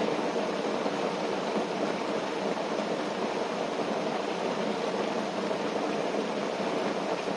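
Steady rush of rain and wind on a tent, an even noise with no crackles or separate drops standing out.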